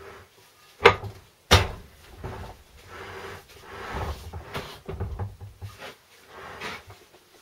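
Two sharp metal clunks about a second in as a Land Rover Series 3 gearbox bell housing is lowered onto the main gearbox case over its studs, then softer scraping and knocks as the casing is shuffled and settled into place.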